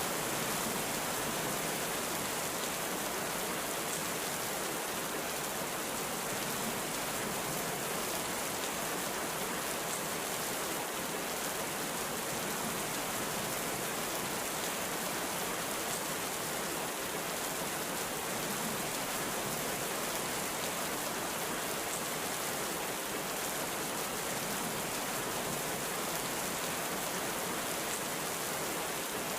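Heavy rain falling steadily, a dense even hiss with faint scattered drop ticks; no thunder.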